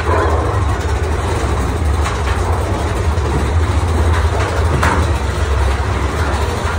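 Big Thunder Mountain Railroad mine-train roller coaster rumbling along its track, heard from aboard the train: a steady, loud low rumble with a few sharp clacks, about two seconds apart.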